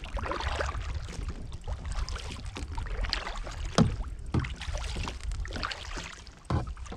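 Canoe paddle strokes in lake water, the blade splashing and dripping, with a few louder strokes past the middle, over a steady low rumble.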